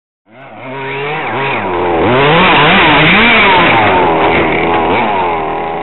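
Small two-stroke petrol engine of a 1:6-scale RC car, its note rising and falling again and again as the throttle is worked, slowed down to a low, wavering pitch.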